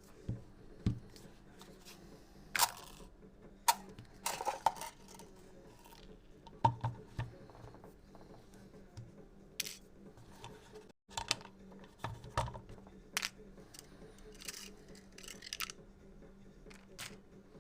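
Irregular clicks, taps and a few short scrapes of small parts being handled as an airsoft gas magazine is taken apart, about a dozen separate sounds over a faint steady hum.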